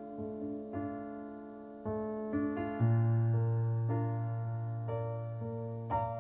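A piano-toned keyboard plays slow, sustained chords, a new chord struck about once a second, with a deep bass note coming in about three seconds in.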